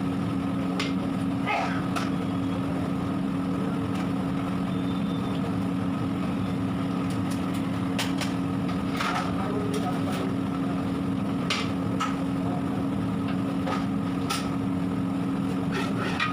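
A steady machine hum with scattered sharp clicks and knocks over it.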